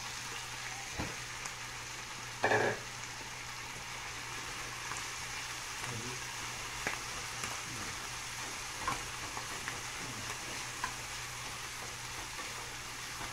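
Longaniza sausage and diced pineapple sizzling steadily in a frying pan while a spatula stirs and scrapes through them, with one short knock about two and a half seconds in.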